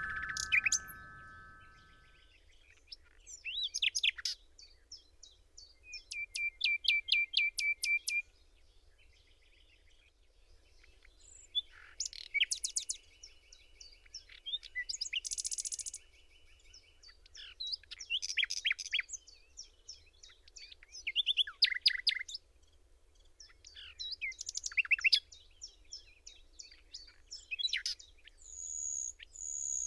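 A glockenspiel's notes ring out and fade over the first two seconds. Then birds sing in repeated bursts of high chirps and quick trills, separated by short pauses.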